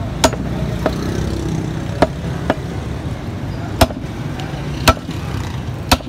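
Meat cleaver chopping beef on a wooden log chopping block: seven sharp strikes at uneven spacing, the last three the hardest and about a second apart.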